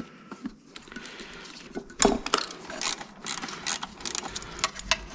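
Irregular metallic clicks and knocks of hand tools and parts as the intake plenum is worked loose from a BMW S50B32 engine, with a sharper knock about two seconds in.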